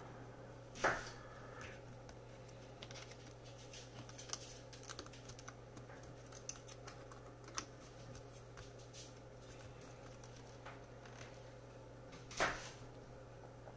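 Faint small clicks and taps as a pen-style soldering iron tip and fingers work on a laptop palmrest's plastic and metal keyboard plate, heat-staking the plastic posts at a low iron temperature. A steady low hum runs underneath, with two louder short rustles, one about a second in and one near the end.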